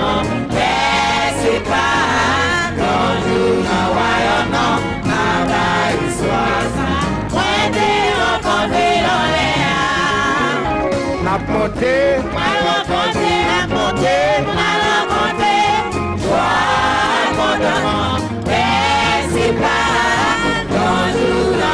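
Live gospel music: a choir and congregation singing together over a band that includes a brass bass horn.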